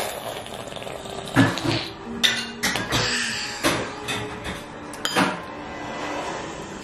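Spoons knocking and scraping against bowls as toddlers eat, with several sharp clinks spread through.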